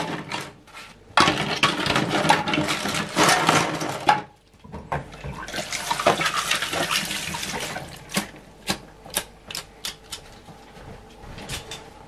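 Water sloshing and splashing in a stainless-steel sink as plastic computer-case parts are scrubbed and wiped in soapy water, in two stretches with a brief pause between. In the last few seconds there are only scattered light knocks and clicks.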